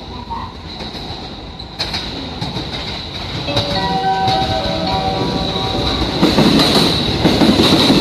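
Electric commuter train coming in along the platform, its rumble growing steadily louder as it nears. A brief whine of several pitched tones is heard from about three and a half to five seconds in. Then the rattle and clatter of the wheels grows as the cars pass close by.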